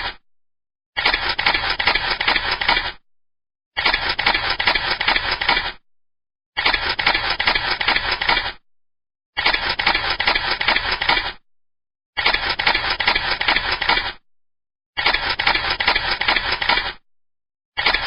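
Camera shutter firing in rapid bursts of continuous shooting: about two seconds of fast clicking at a time, repeated every few seconds with short silent gaps between bursts.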